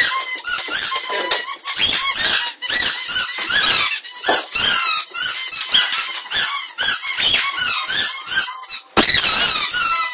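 Dogs chewing rubber squeaky toys, a fast, continuous stream of high-pitched squeaks several a second. A short burst of noise near the end.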